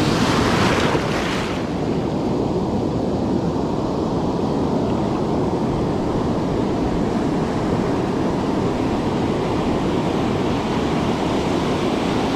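Ocean surf breaking and washing around the angler, a steady loud rush of water with wind on the microphone; a louder, hissier wash in the first second or so.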